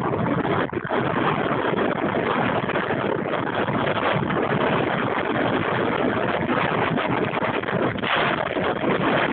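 Wind rushing over the microphone and a steady clatter of knocks and rattles as a mountain bike runs fast down a rough downhill trail.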